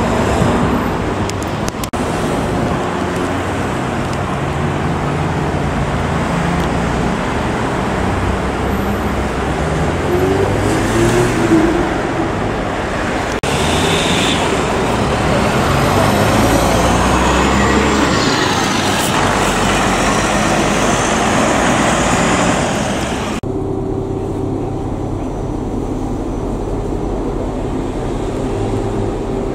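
City street traffic: an articulated tram running past, then a coach bus moving along beside a tram stop. About three-quarters of the way through, the sound cuts to the duller, steady hum inside a tram.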